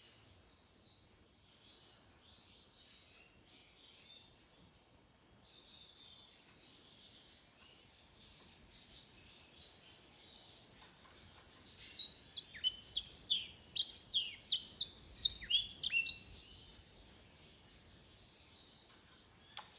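A mule black-throated canary singing. Soft, quiet twittering runs for the first twelve seconds or so. Then comes a loud burst of song, about four seconds of rapid chirps and falling whistles, before it drops back to faint twittering.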